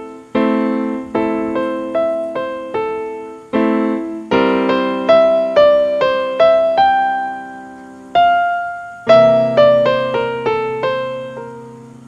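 Background piano music: a slow melody of struck notes, each fading away, over held lower chords.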